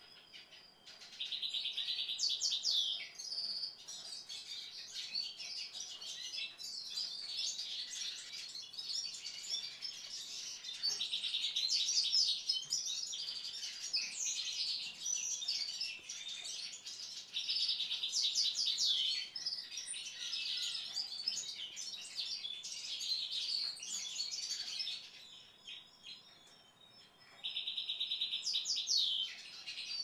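Small songbirds singing and twittering. A song phrase that opens with a rapid trill and rises into higher notes comes four times, over a steady chatter of high chirps that dies down near the end.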